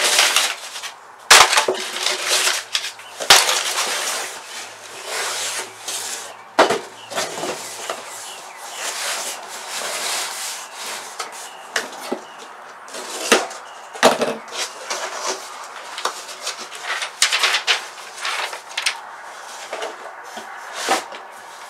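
Cardboard boxes being handled and opened: flaps scraping and rustling, broken by sharp knocks, the loudest about one and a half seconds and three seconds in.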